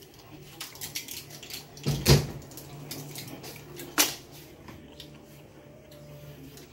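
Household handling noises: a dull thump about two seconds in and a sharp click about four seconds in, with small scattered clicks between them.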